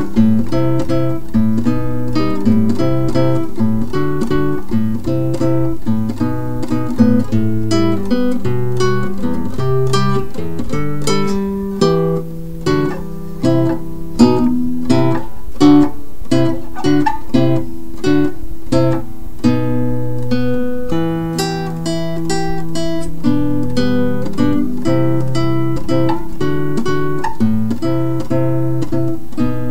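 Background music on acoustic guitar: plucked notes in a steady, continuous run.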